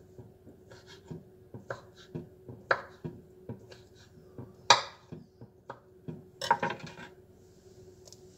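Kitchen knife cutting a hot dog into chunks on a wooden cutting board: irregular knocks of the blade striking the board, the loudest about halfway through.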